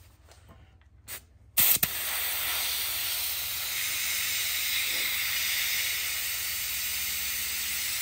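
Compressed air hissing through a hose-fed digital tire inflator gauge clamped on the valve stem of a dirt bike tire, as the tire's air pressure is being set. The hiss starts abruptly about a second and a half in, runs steadily for about six seconds, then cuts off.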